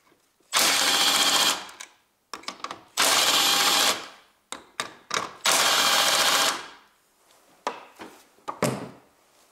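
A power driver run in three bursts of about a second each, a couple of seconds apart, spinning out three bolts, with small handling clicks between the bursts.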